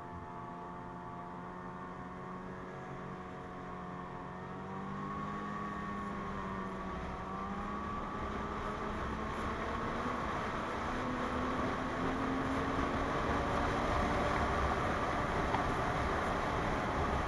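A 2017 Ski-Doo MXZ 600 Carb Sport snowmobile's two-stroke engine running under way. Its pitch wavers, then climbs, and it grows louder through the second half as the sled picks up speed.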